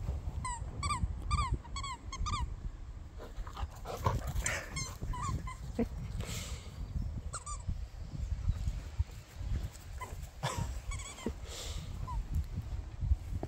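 Rubber squeaky dog toy squeaking as a puppy chews it: runs of short, falling squeaks in quick succession, several bursts over the stretch, with a few rustling chews in between.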